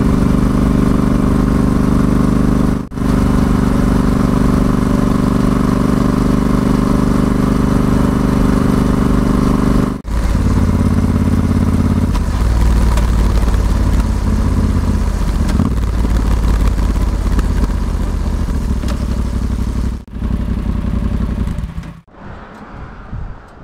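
Yamaha XSR700's 689 cc parallel-twin engine heard from the rider's seat, running steadily at cruising speed with brief dropouts. After about ten seconds it runs lower and more unevenly as the bike slows. Near the end the engine sound falls away sharply and goes quiet.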